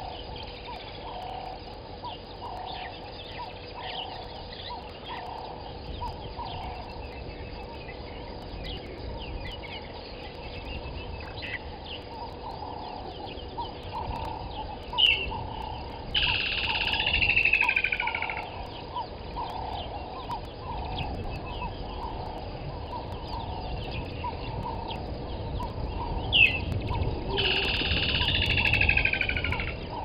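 Wild birds calling: many short chirps throughout, and twice, near the middle and near the end, a louder call of about two seconds that falls in pitch, each with a sharp note just before it.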